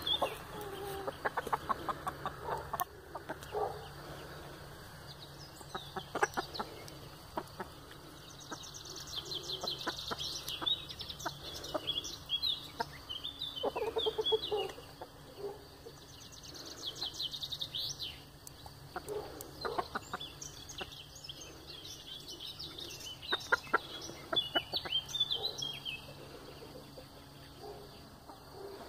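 A flock of chickens clucking and calling, with short rapid clucks and bursts of high chirping calls several times over.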